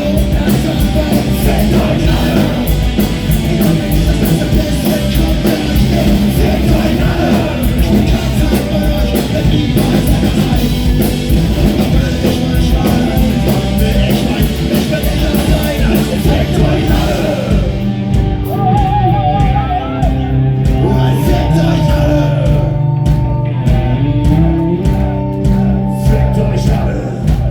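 Punk rock band playing live, with loud distorted guitars, drums and singing. About two-thirds of the way in the drums drop out, leaving held, wavering guitar notes over a steady bass.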